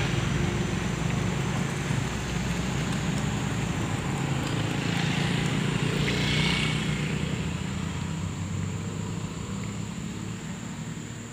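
A road vehicle's engine running close by, a steady low hum that fades gradually toward the end as it moves off.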